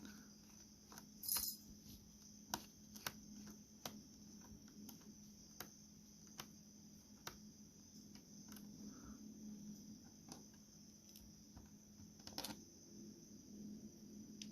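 Faint, scattered clicks and small metallic ticks of a screwdriver working the bottom-case screws of a laptop. There is a louder clatter about a second in and another near the end.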